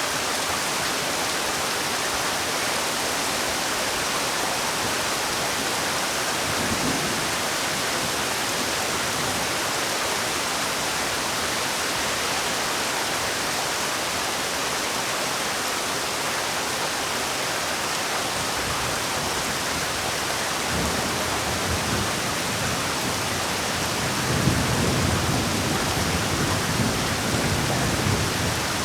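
Heavy rain falling as a steady, even hiss. A low rumble swells in briefly about a quarter of the way in, and again over the last several seconds.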